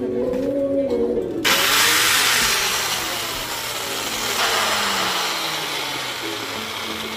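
DCA angle grinder switched on about a second and a half in and running with a loud, rushing whir. It runs, but its worn bearing makes the sound unpleasant. Background music plays before it starts.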